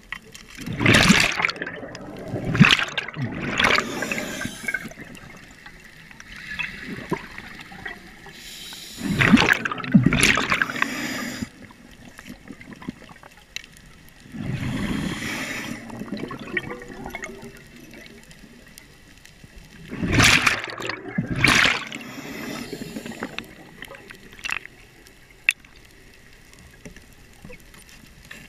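Scuba regulator exhalations underwater: bursts of bubbles gurgling out about four times, several seconds apart, with quieter stretches between.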